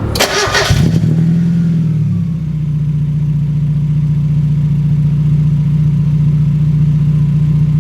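A 1993 Mazda Miata's 1.6-litre four-cylinder engine starts within the first second and settles into a steady, even idle about two seconds in. It runs with no audible misfire, which seems to have been cured by new spark plugs.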